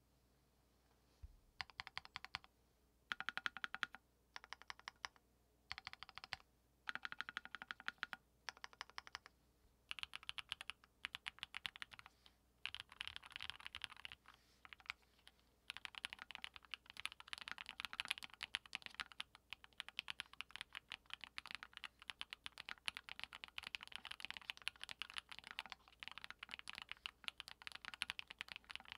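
Typing on a Monstargear Sangeo60 custom mechanical keyboard with an aluminium plate, lubed 55 g Durock POM linear switches and PBT keycaps. The keystrokes begin about a second and a half in as short bursts separated by pauses, and from about halfway they become a steady run of fast typing.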